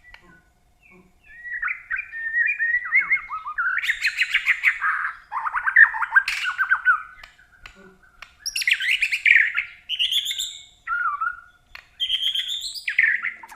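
A caged songbird singing: long runs of rapid trills and warbling phrases, broken by short pauses.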